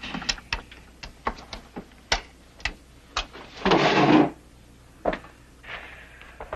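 Scattered light clicks and knocks of a polygraph instrument being handled on a desk, with a short rasping burst of noise a little before the middle.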